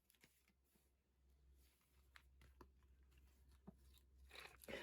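Near silence: room tone with a low hum, a few faint clicks and a brief soft rustle near the end.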